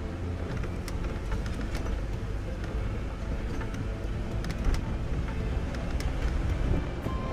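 Jeep driving slowly over a rough dirt track: steady low rumble of engine and tyres on the dirt, with scattered clicks and knocks from stones and rattles.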